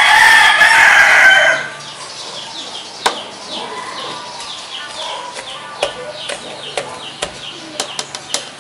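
A rooster crows loudly once in the first second and a half. After it come scattered soft clicks and scrapes of a plastic potato masher working potatoes in a steel pot.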